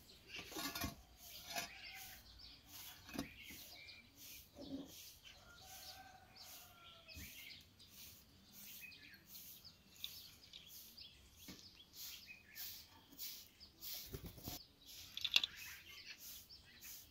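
Ashes being cleared out of a clay pit tandoor by hand with a scoop and dumped into a metal basin: irregular scrapes, rustles and soft knocks, louder about fifteen seconds in. A faint bird call glides past about six seconds in.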